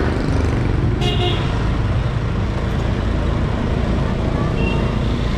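Steady rumble of street traffic and motorbike engines, with a short horn toot about a second in and a briefer toot near the end.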